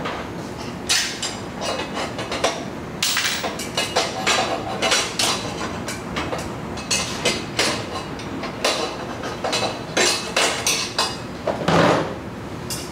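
A hand wrench working the bolts on a stainless-steel exhaust muffler and its mounting bracket: irregular metallic clicks and clinks of tool on metal, several to the second in places, with a louder clank near the end.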